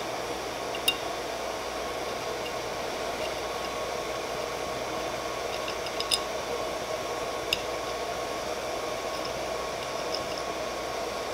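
Steady whirr of a 3D printer's small cooling fans. Three light clicks, about a second in and twice around six to seven and a half seconds in, come from an Allen key and small parts being handled on the extruder's fan shroud.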